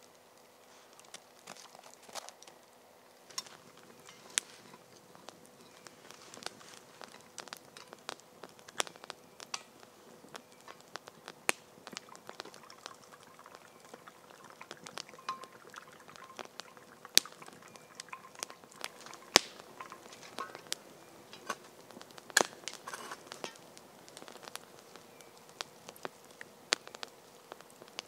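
Wood campfire crackling, with irregular sharp pops and snaps, a few louder ones in the second half.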